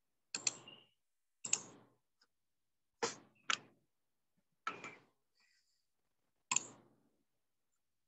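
Computer mouse clicks, a series of sharp clicks about a second apart, some in quick pairs, each with a short decay.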